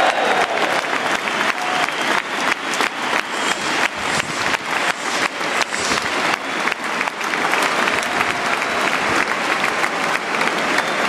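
Stadium crowd applauding, with sharp hand claps close by, a few a second, over the wider applause of the stands.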